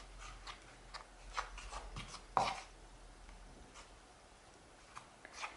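Wooden spoon stirring a dry flour mixture in a plastic bowl: soft, irregular scraping and rubbing strokes. The loudest stroke comes about two and a half seconds in, and the strokes thin out and grow quieter after that.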